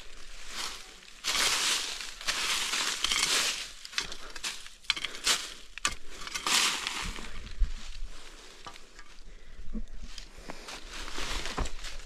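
Footsteps crunching and rustling through dry leaf litter and undergrowth, in uneven bursts with a few sharp clicks between them.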